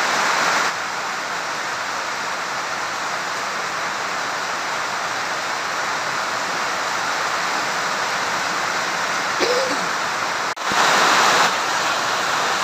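Heavy rain pouring down in a steady hiss. It drops out for an instant a little after ten seconds in and comes back louder for about a second.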